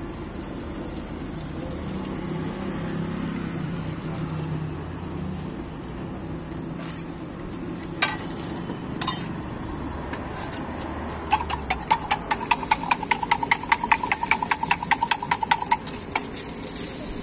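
A metal utensil striking metal cookware: two single clinks, then a fast, even run of ringing clinks, about seven a second, for some four seconds in the second half. A steady low hum runs underneath throughout.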